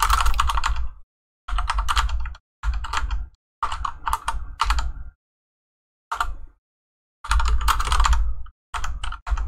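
Typing on a computer keyboard: several quick bursts of keystrokes separated by short pauses, the longest pause about halfway through.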